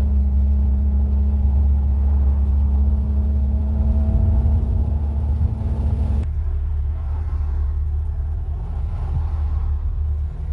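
Infiniti G35 coupe's 3.5-litre V6, fitted with ISR resonated test pipes, running with a steady deep exhaust rumble. About six seconds in the sound changes abruptly to a rougher, more uneven rumble.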